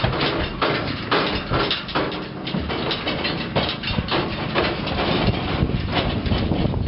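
A horse's hooves knocking and clomping on the floor of an aluminum stock trailer as a paint mare walks out and steps down, a steady run of irregular knocks and thuds.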